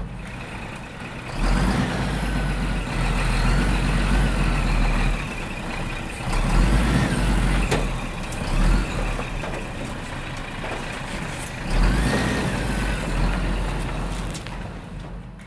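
Heavy truck engine running, its rumble swelling and easing several times, with a few brief high squealing glides; it fades out near the end.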